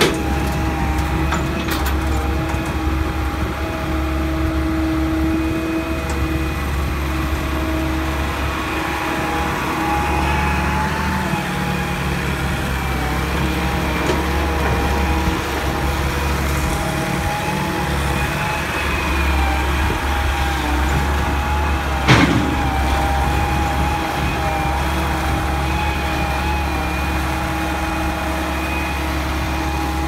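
Hitachi EX200 crawler excavator's diesel engine running steadily, with several steady whining tones over the engine note. One sharp knock about 22 seconds in.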